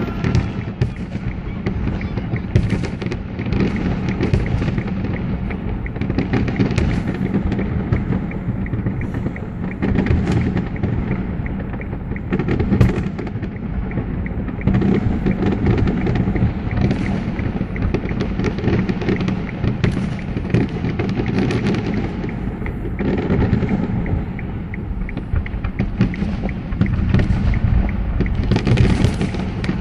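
Fireworks display: aerial shells bursting in a rapid, near-continuous barrage of booms over a heavy rumble.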